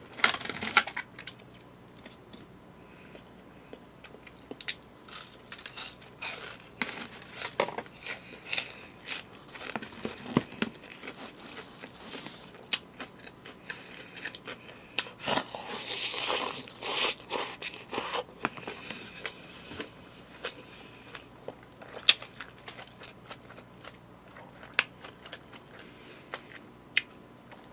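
A person eating close to the microphone: chewing and biting with crunches, among scattered light clicks of chopsticks and a spoon on plastic food containers.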